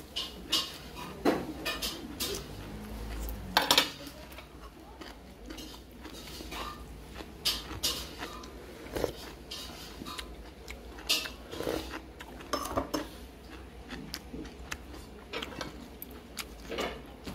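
Tableware clinking: metal chopsticks and dishes knocking together in scattered, irregular sharp clinks, with the loudest clatter about four seconds in.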